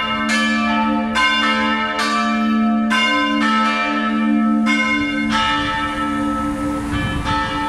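Full peal of three swinging church bells tuned a', c'', d'' (two cast by St. Florian in 1956, one by Böhler in 1923), their strikes overlapping over a steady humming tone. From about five seconds in the strikes come more sparsely.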